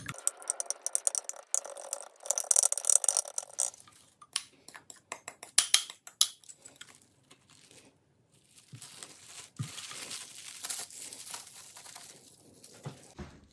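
Plastic cling wrap crinkling and rustling, with a utensil scraping soft butter out of a glass bowl, while the butter is wrapped and rolled into a log. Bursts of quick crackles and scraping come in the first half, then a softer rustle of the wrap with a couple of dull knocks on the board.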